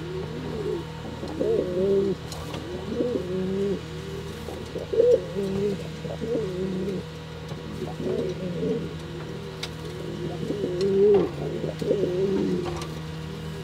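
Pouter pigeon (buchón) cooing over and over, a steady run of short rolling coos.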